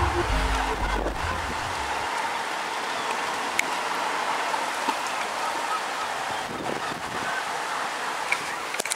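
Steady hiss of rain, with a few faint clicks; a music track ends about two seconds in.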